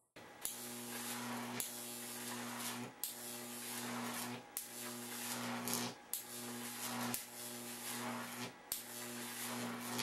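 Steady electrical hum with hiss, broken by brief dropouts roughly every second and a half.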